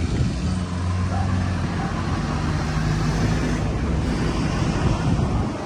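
A motor vehicle's engine running: a steady low hum that shifts slowly in pitch, with road-traffic noise around it.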